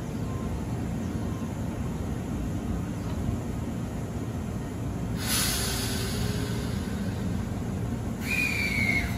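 Izukyu 8000-series electric train standing at the platform with its equipment humming steadily. Two short, loud bursts of compressed air hiss from the train's air system, one about five seconds in and one near the end that carries a falling whistle.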